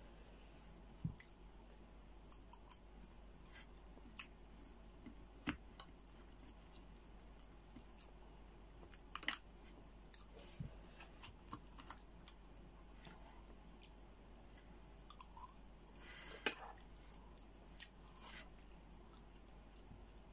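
Sparse, irregular clicks and scrapes of a metal spoon against a cooked crab's shell as the roe and meat are scooped out, with quiet chewing in between.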